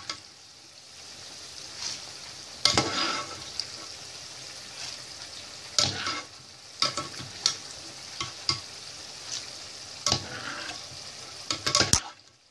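Almonds frying in a pot of hot oil with a steady sizzle, while a metal skimmer knocks and scrapes against the pot every second or two, stirring and lifting out the almonds once they are golden.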